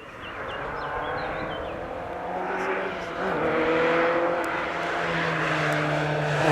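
Group F2000 rally car's engine at high revs, approaching and growing steadily louder, with a brief break in the engine note about three seconds in.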